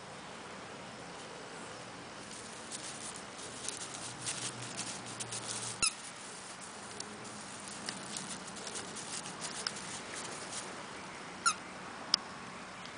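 A puppy's squeaky rubber ball squeaks in short sharp bursts: once about halfway through, then twice close together near the end. Before and between the squeaks comes a run of light crackling and rustling as the puppy plays with it in the grass.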